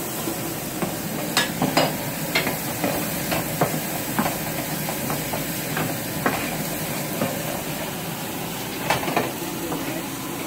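Chopped onions sizzling in a hot pan while being stirred, with a steady frying hiss and scattered sharp clicks of the utensil knocking against the pan.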